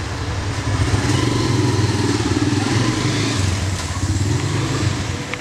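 A motor vehicle engine running, a steady low hum that grows louder about a second in and eases off near the end, in an underground car park.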